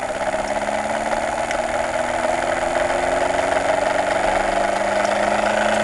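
Homemade two-coil Thomas pulse motor running at 15 volts: the aluminium rotor spins with a steady whirring buzz, its pitch slowly rising as it gathers speed.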